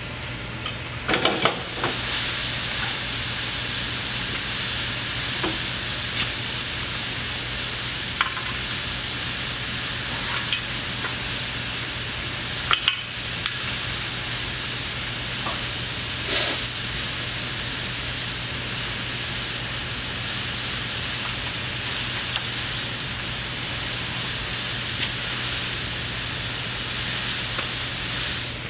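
Steady hiss of compressed air escaping from an air hose and fitting, with a few sharp metallic clicks and knocks as parts are handled, over a steady low hum.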